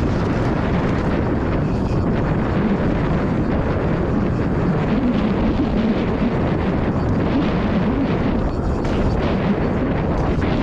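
Wind rushing over the camera microphone mixed with mountain bike tyres rolling over a dirt trail, a steady loud rumble.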